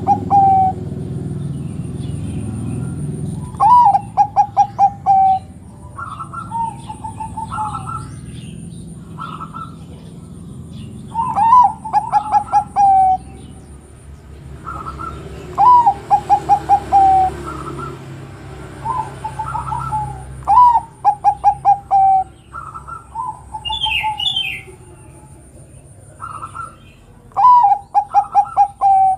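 Zebra dove (perkutut) cooing: each phrase is a rising note followed by a quick run of short staccato coos. The phrase repeats about five times, every few seconds, with shorter coos in between.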